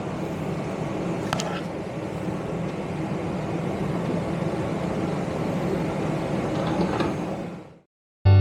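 Steady in-flight cabin noise of a Boeing 777-300ER: an even rumble of engines and airflow with a constant low hum. There is a single click about a second and a half in, and the noise fades out near the end.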